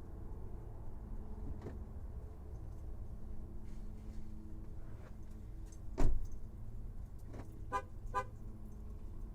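A car door shuts with a solid thump, then a car horn gives two short chirps about half a second apart, as when a car is locked by remote. A steady low rumble of engines underlies it.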